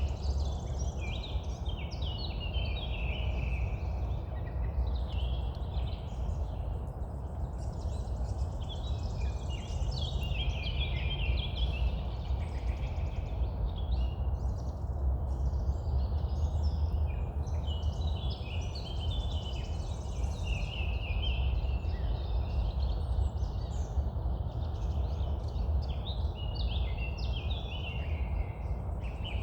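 Dawn chorus of several songbirds, a song thrush among them singing its series of short phrases, over a steady low rumble.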